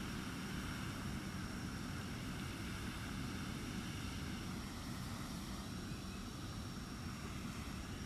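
Steady low rumble of distant engine noise, with a faint, steady high tone above it.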